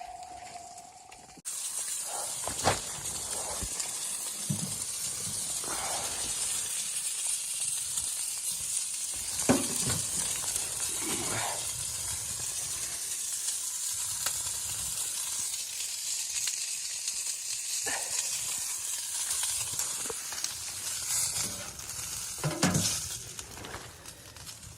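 Food sizzling in a hot pan, a steady frying hiss with a few scattered knocks and clicks.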